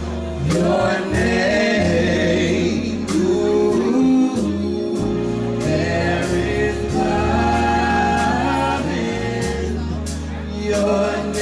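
Live gospel music: male voices singing in harmony over long low bass notes and a steady beat.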